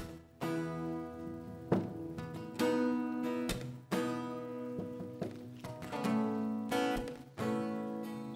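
Acoustic guitar and a second guitar strumming slow chords, each chord struck about every second or two and left to ring.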